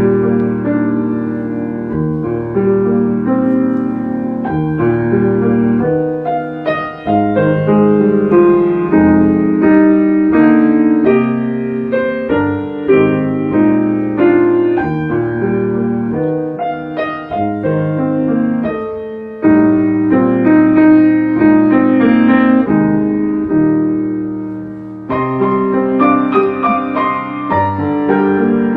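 Solo piano playing a prelude: chords with a melody over them, with short breaks between phrases.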